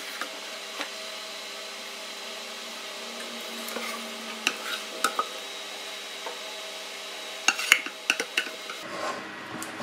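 A plastic ladle clicking and scraping as thick, freshly cooked custard is spooned and spread into a pastry-lined baking tin. Scattered taps build to a quick cluster near the end, over a steady kitchen hum.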